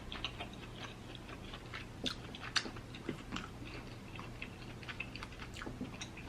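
A person eating close to the microphone: irregular soft wet clicks and smacks of chewing, with a couple of sharper cracks about two seconds in and again half a second later.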